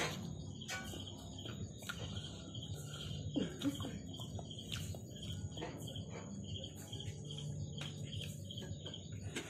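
Close mouth sounds of eating noodles: chewing and slurping, with scattered sharp clicks and a short falling sound about three and a half seconds in. Insects chirp in an even rhythm, about three chirps a second, behind them.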